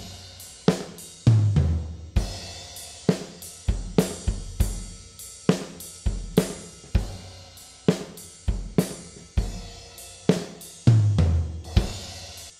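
Recorded drum kit played back on its own in a steady beat of kick, snare, hi-hat and cymbals, with the snare and toms run through a true-stereo large-room convolution reverb (Convology XT) as a send effect, which makes the drums sound huge. Heavier low drum hits come about a second in and again near the end.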